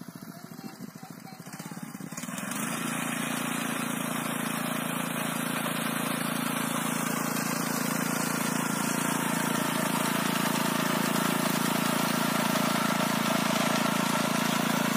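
Small petrol engine of a wheeled trimmer mower running while cutting long grass; it grows louder about two seconds in, then holds steady.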